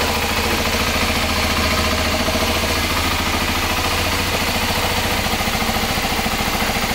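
Kawasaki Ninja 250 motorcycle engine idling steadily, with an even low pulsing rumble.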